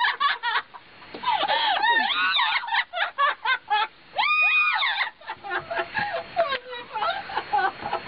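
Parrots imitating human laughter: high-pitched laughing calls with sliding pitch, a quick run of short 'ha-ha' notes, then one long held squawk about four seconds in, followed by more chattering calls.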